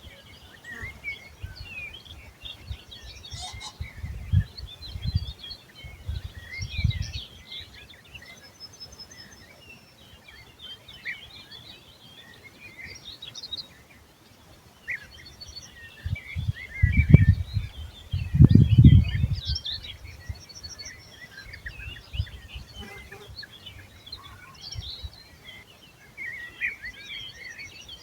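Several wild songbirds singing and chirping, with short calls and warbles overlapping throughout. Low rumbles come and go underneath; the loudest is about two-thirds of the way through.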